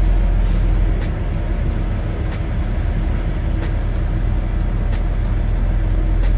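Semi-truck's diesel engine running with a steady low rumble.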